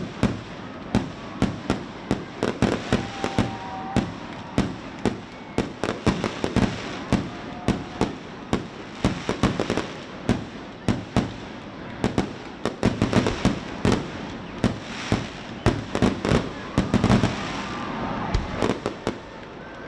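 Fireworks display: a continuous barrage of sharp bangs and crackling reports, several a second, growing denser in the second half.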